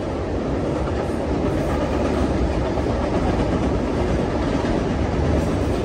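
Intermodal freight train's container cars rolling across a steel trestle bridge overhead: a steady low rumble of wheels on rail, growing slightly louder toward the end.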